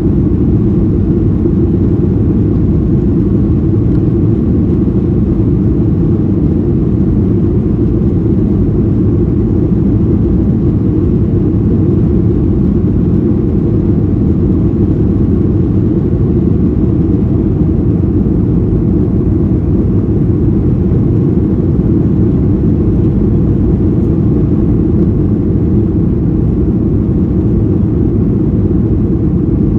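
Steady low drone of cabin noise inside a Boeing 737-800, the sound of its CFM56 jet engines and airflow heard through the fuselage, holding level without rising or falling.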